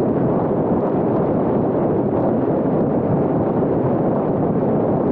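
Steady, loud rush of wind and road noise from a car travelling at motorway speed, with no engine note or distinct events standing out.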